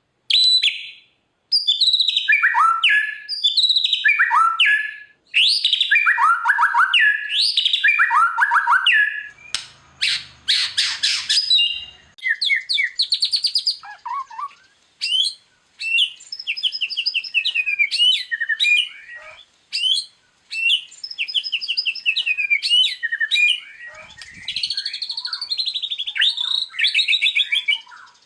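White-rumped shama (murai batu) singing a fast, varied song of whistled phrases and rapid down-slurred trills, with a harsh buzzy phrase about ten seconds in and a few brief pauses.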